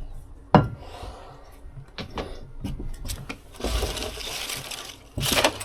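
Knocks and clatter of debris being handled and tossed around inside an old fiberglass boat hull during teardown. A sharp bang comes about half a second in, a scraping rustle follows around four seconds, and a louder rattle comes near the end.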